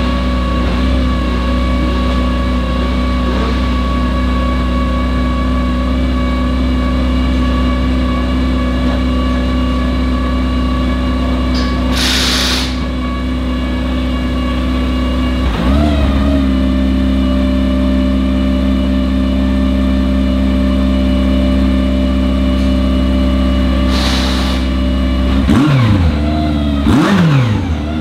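BMW GT3 race car's twin-turbo engine idling while warming up, with a quick rev about halfway and two more quick revs near the end. A brief hiss sounds twice.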